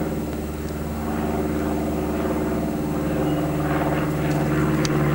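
Steady engine hum of a light propeller spotter plane overhead, growing slightly louder toward the end.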